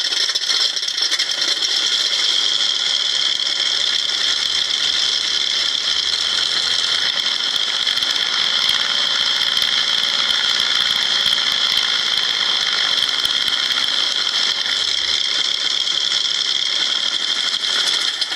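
Recorded P-47 radial aircraft engine sound played by an RC electronic sound module through a small speaker in a pink insulation-foam enclosure, running steadily with a thin, tinny rattle and almost no bass.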